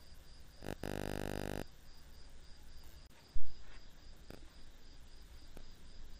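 A cricket chirps steadily in even high pulses. About a second in, a buzzing tone with many overtones sounds for just under a second, and about halfway through there is a single sharp thump.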